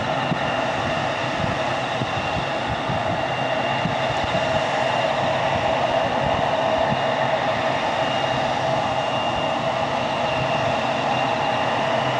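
Embraer 175 jet airliner's twin turbofan engines running at low power on the ground: a steady rushing hum with a thin high whine over it, growing slightly louder near the end.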